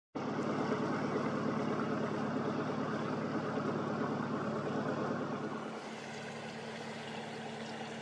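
Engine of a passing river cruiser running steadily, starting abruptly and easing a little quieter about five and a half seconds in.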